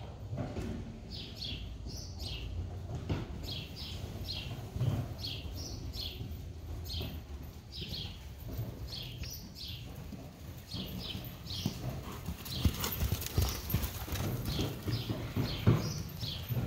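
Horse trotting on soft sand footing: a steady, even rhythm of hoofbeats that grows louder as the horse comes near about twelve seconds in. Short high chirps sound on and off over the hoofbeats.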